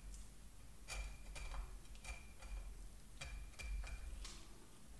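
Filleting knife clicking and scraping over a Dover sole's rib bones as the blade is worked along the fillet, a short sharp click about once a second.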